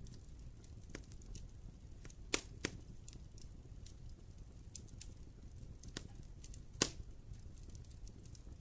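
Wood fire burning in a fireplace, crackling with scattered sharp pops over a low rumble of flame; the loudest pops come about two and a half seconds in and again near seven seconds.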